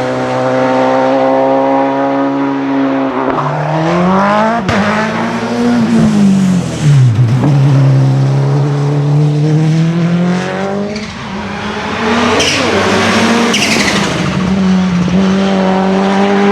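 Racing car engine working hard on a hillclimb run, its pitch holding, then dropping and climbing again several times as the car brakes, changes gear and accelerates through the bends. A sharp crack comes about four and a half seconds in.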